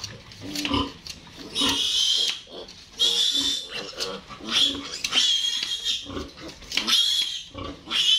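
A piglet squealing in distress while held upside down by its hind legs for castration: about five loud, high-pitched screams roughly a second and a half apart, with lower grunting squeals between them.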